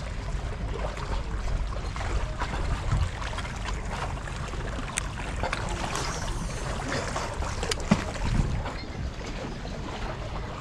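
Wind rumbling on the microphone over water lapping against shoreline rocks, with scattered small clicks and knocks.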